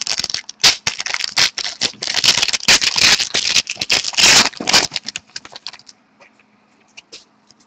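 A pack of hockey trading cards being torn open: the wrapper crinkles and crackles in quick, irregular rustles for about five seconds, then it goes quieter with a few faint clicks as the cards are handled.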